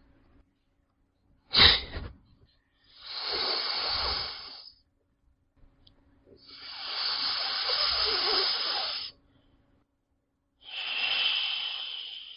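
Snake hissing four times with quiet gaps between: a short sharp hiss about a second and a half in, then three longer hisses, the middle one lasting about three seconds.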